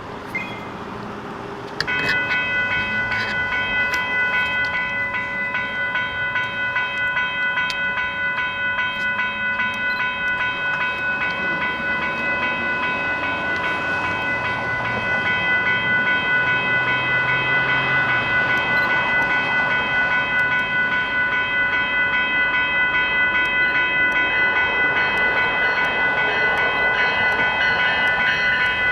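Railway level-crossing warning bell starting suddenly about two seconds in and ringing on with a rapid, steady dinging as a train approaches, with the train's rumble growing louder about halfway through.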